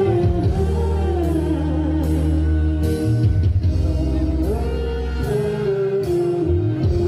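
A man and a woman singing together into microphones over an amplified live band: an electronic keyboard, deep sustained bass notes, and a sharp percussion hit about every second and a half.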